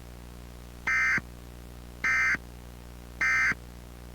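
Emergency Alert System end-of-message (EOM) signal: three short bursts of SAME digital data tones, a little over a second apart, marking the end of the alert.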